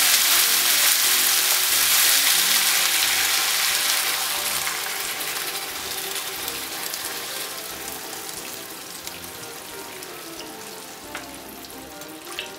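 Meat pieces and mushrooms sizzling in a frying pan as cream is poured over them from a carton. The sizzle is loud at first and dies away steadily over the following seconds.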